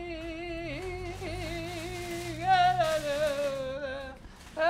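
A man singing long drawn-out notes in a wavering voice, the pitch sliding lower near the end, then starting another note after a short break.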